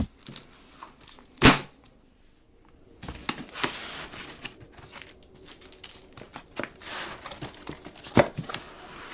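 Rustling and handling noises in a small room, with a single sharp knock about a second and a half in and crinkling rustles with small clicks from about three seconds on.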